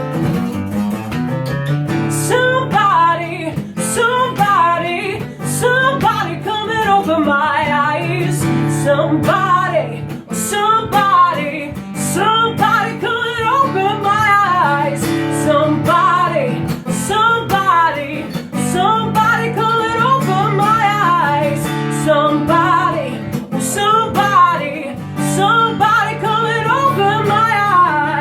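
A song played on strummed guitar with a voice singing the melody over it.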